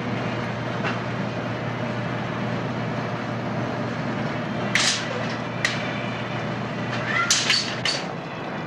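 Grocery store background with a steady hiss and a few sharp clatters of handled goods or a shopping cart: one a little past halfway, another a second later, and a quick run of several near the end.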